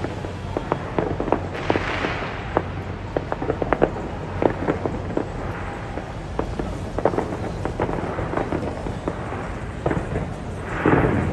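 Aerial fireworks going off in a steady run of sharp bangs and crackles, several a second, with a louder, longer burst near the end.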